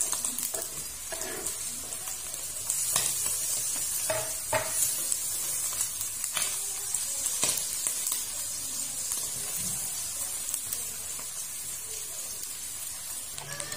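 Shallots, garlic and shredded salted fish sizzling in hot oil in a wok, with scattered clicks and scrapes of a metal spatula stirring against the pan.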